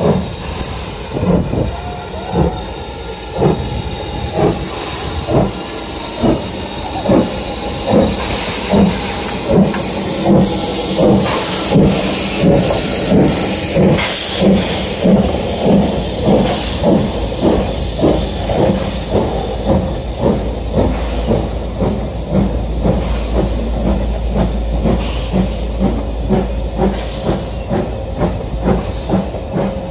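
BR Standard Class 4MT 2-6-0 steam locomotive No. 76084 working a train past: regular exhaust beats, about one a second and quickening a little, over the hiss of steam from open cylinder drain cocks. In the later part the coaches roll past with a low rumble and wheel clatter.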